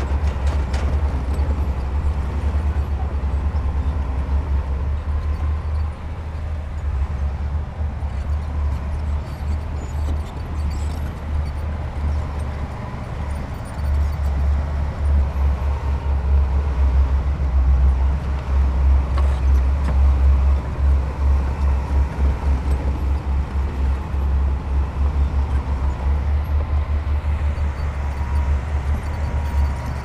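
Heavy diesel construction machinery running: a deep, rapidly pulsing engine rumble that grows louder about halfway through.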